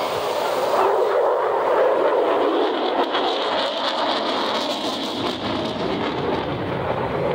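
Jet noise from a single-engine F-35 Lightning II flying over, a steady rushing sound, slightly louder about a second or two in.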